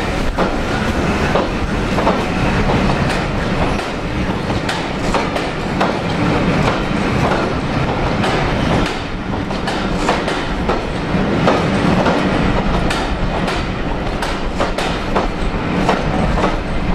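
Railway passenger coaches rolling past, wheels clattering over rail joints and points in a steady run of irregular clicks and knocks over a constant rolling noise.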